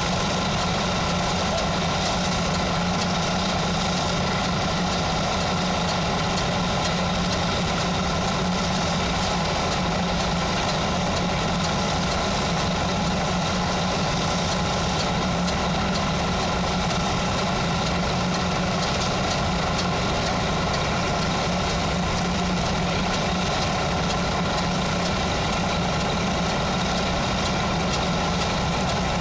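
An engine idling steadily, an even mechanical drone that does not change.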